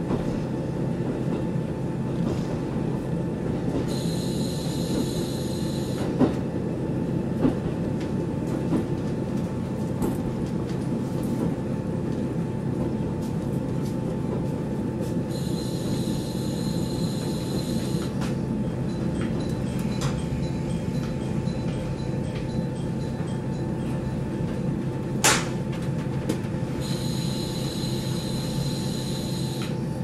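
KiHa 40 diesel railcar running, heard from inside the car: a steady rumble of engine and wheels, with a high squeal three times, about 4, 15 and 27 seconds in. A few sharp knocks from the rails, the loudest about 25 seconds in.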